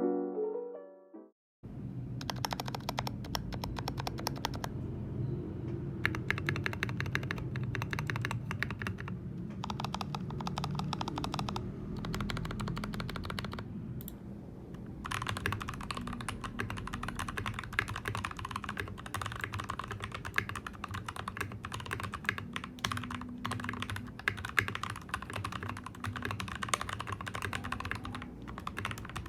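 Fast typing on an NK65 Entry Edition custom mechanical keyboard: a dense run of key clacks with a few short pauses. It starts about two seconds in, after a brief tail of piano music.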